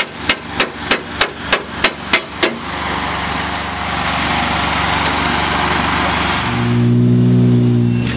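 A quick, even run of about nine sharp knocks, then a rushing noise that grows louder and gives way near the end to a rally car's engine note, held at a steady pitch and loudest as it passes.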